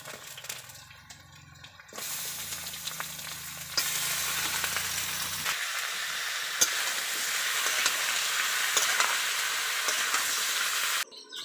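Chicken pieces and sliced onions frying in hot oil in an iron wok, a steady sizzle that starts about two seconds in and cuts off suddenly near the end. A few sharp clinks from a metal ladle stirring sound over it.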